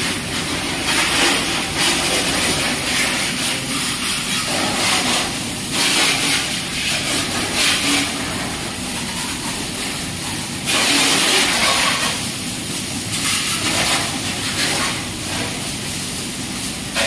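High-pressure washer jet hissing as water is sprayed over a motorcycle, swelling and easing every few seconds as the jet moves across the bike.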